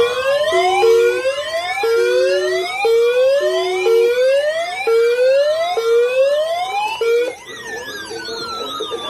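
Several weather radio alarms sounding together: a repeating rising electronic whoop about once a second over other falling and warbling siren tones. About seven seconds in, the sound changes to a faster warble with long falling sweeps.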